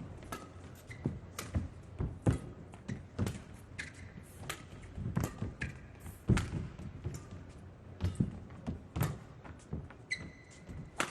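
Badminton rally: rackets striking the shuttlecock about once a second, with players' feet thudding on the court and brief shoe squeaks, in a large hall.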